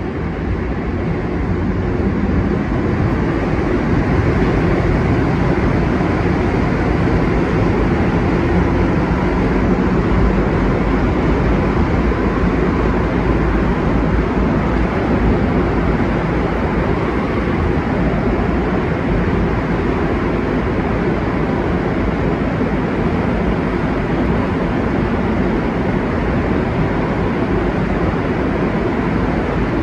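Rubber-tyred Montreal Metro train running through a tunnel, heard from inside the car: a steady, loud rushing noise that builds over the first few seconds, then holds.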